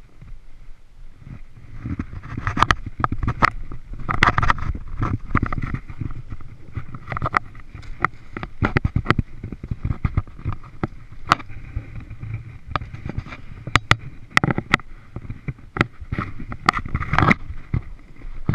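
Footsteps crunching in snow, an irregular run of sharp crunches and scuffs, with rustling and knocking of the body-mounted camera as the walker moves.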